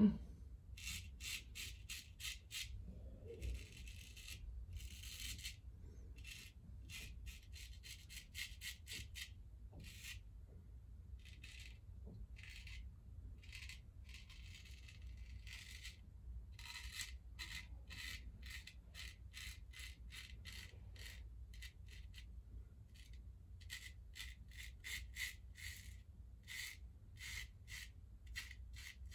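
Freshly honed straight razor scraping through lathered beard stubble in runs of short, quick strokes, with brief pauses between passes.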